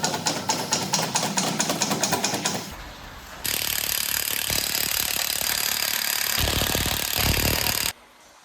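Rapid, even mechanical hammering from a power tool for about three seconds, then a steady loud hissing rush for about four seconds that cuts off suddenly near the end.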